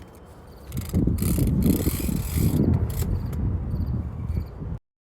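Rhino retractable ratchet strap's ratchet mechanism running, a loud rapid clicking that starts about a second in and lasts about four seconds.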